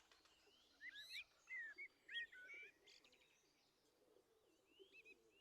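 Faint bird chirps over near silence: a few short calls about a second in, a run of chirps over the next second and a half, and a couple of soft notes near the end.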